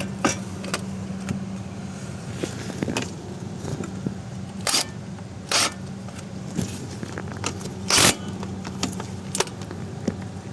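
An impact wrench fired in a few short bursts, the loudest near the end, running in the bolts of a new wheel hub bearing assembly. Small metallic clinks of tools and parts sound between the bursts, over a steady low hum.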